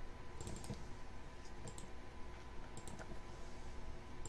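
Light clicks of a computer mouse in short clusters of two to four, about once a second, over a faint steady hum.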